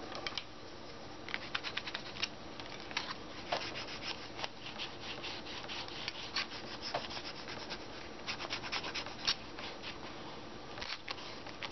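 Fingers rubbing firmly over a piece of printed paper glued down with gel medium on a gessoed journal page, burnishing it flat: dry, scratchy rubbing in several bursts of short, quick strokes.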